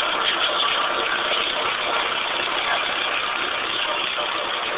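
Long UTB 460 tractor's three-cylinder diesel engine running steadily under load, driving a hay tedder.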